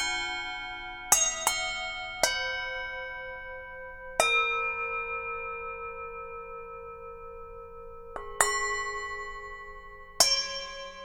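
Tibetan singing bowls struck one after another, about seven strikes of differing pitch. Each note rings on with many overtones and a slow wobble, fading gradually until the next strike.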